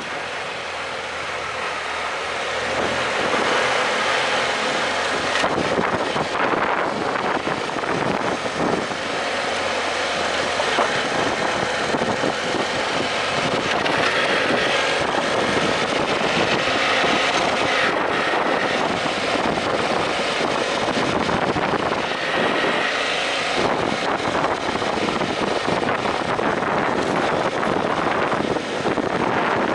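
BMW F800GS adventure motorcycle riding a gravel road: the parallel-twin engine running steadily, mixed with wind and the crackle of tyres on loose stones.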